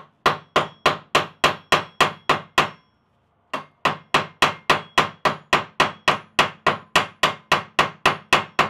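Ball peen hammer striking a brass pin in a stainless steel tool socket, about four to five quick, even blows a second with a slight metallic ring, peening the pin head over to rivet the handle in place. The hammering stops for just under a second about three seconds in, then carries on.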